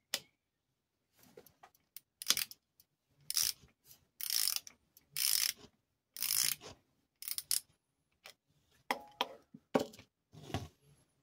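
Ratchet wrench clicking in a string of short bursts, one quick run of clicks per swing of the handle, as it loosens a hex bolt on the end housing of a three-phase induction motor.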